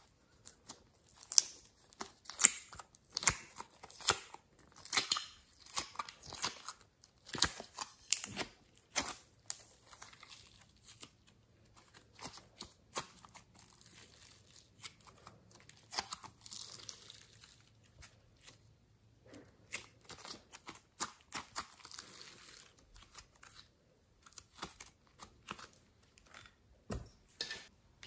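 Glossy slime mixed with soft clay being kneaded and stretched by hand: a run of sharp sticky clicks and pops, dense for the first several seconds and again from about twenty seconds in, with softer handling between.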